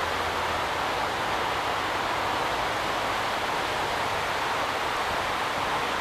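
Floodwater rushing past in a steady, unbroken flow.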